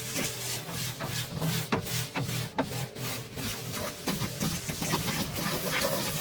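Irregular scraping strokes from hand work on a part, about two or three a second.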